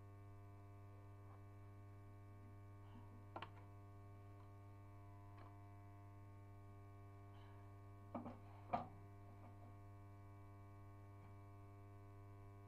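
Near silence under a steady low electrical hum, with a faint click about a third of the way through and a few light knocks close together about two-thirds of the way through.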